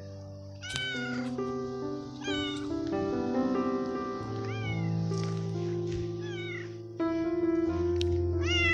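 Tabby cat meowing repeatedly, about six short meows that each fall in pitch, the loudest near the end, over steady background music.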